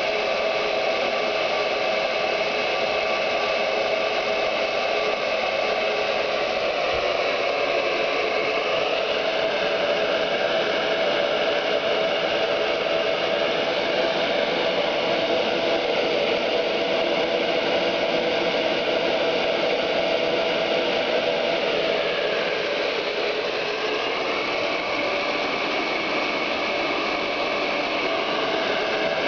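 Handheld hair dryer running steadily: an even rush of air with a constant motor whine, left on as white noise.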